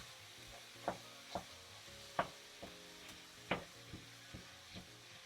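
Ground beef and onions sizzling in olive oil in a pot while a utensil breaks the beef apart, knocking sharply against the pot about eight times at an uneven pace.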